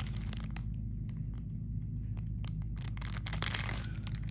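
Thin self-sealing plastic bag crinkling and tearing as it is pulled open, with scattered crackles and a louder rustle about three seconds in. A steady low hum sits underneath.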